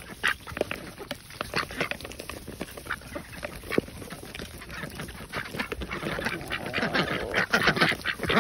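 Several white ducks in a feeding frenzy on diced cucumber in a plastic scoop: rapid clacking and snapping of bills against the plastic, with quacking. It grows busier and louder over the last few seconds.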